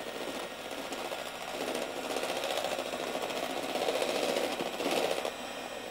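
Electric hand mixer whipping cream in a plastic measuring jug: a steady motor hum with the beaters churning, getting louder about a second and a half in and dropping back near the end.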